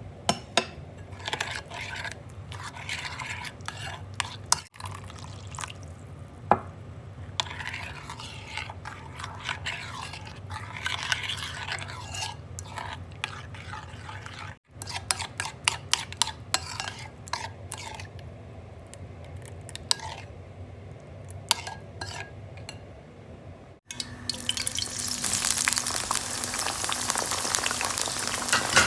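Kitchen preparation sounds: utensils clicking and scraping against a bowl or pan as food is stirred, in several short cut segments. About 24 s in, a steady loud sizzle of food frying in hot oil takes over.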